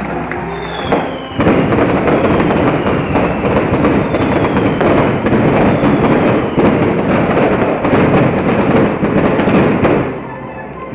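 A rapid string of firecrackers crackling and banging in a dense volley, starting about a second and a half in and stopping shortly before the end.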